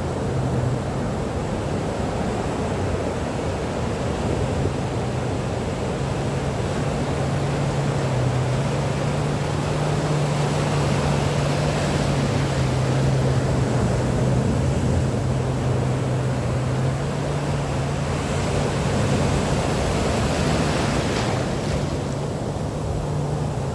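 Sea waves washing steadily, with a steady low drone underneath.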